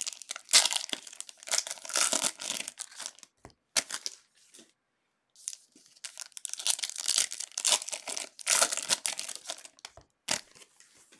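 Foil trading-card pack being torn open and crinkled in the hands, in irregular bunches of rustling with a short pause in the middle. A single sharp click near the end.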